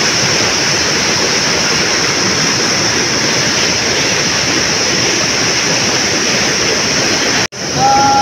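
Stream water rushing, a steady full hiss. It breaks off abruptly about seven and a half seconds in and comes back with a brief high tone over it.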